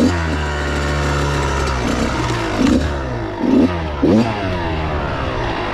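Dirt bike engine under way, revving up and easing off several times, its pitch rising and falling with the throttle.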